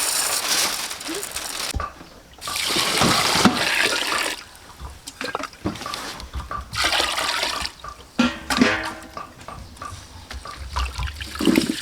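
Water pouring and splashing in bursts that start and stop several times.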